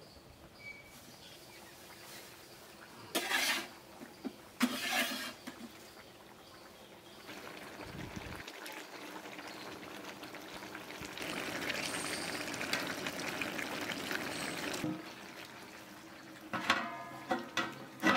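A metal spatula scraping and stirring egg curry in a large metal kadai, with several seconds of wet, bubbling sloshing in the middle, louder for the last few seconds of it. Near the end a wide metal lid clanks onto the pot several times and rings.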